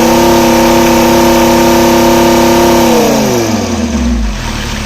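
Mercedes Sprinter diesel engine held at raised revs, running loud with its exhaust pipe removed, then dropping back to idle about three seconds in.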